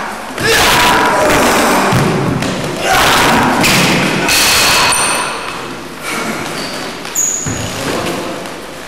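Thuds and scuffling from two men grappling and taking each other down on a wooden gym floor, with a few short high squeaks near the middle and toward the end.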